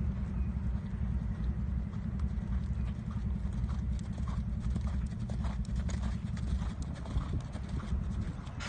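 Hoofbeats of a ridden Thoroughbred horse moving over a sand arena, a run of irregular soft thuds, over a steady low rumble.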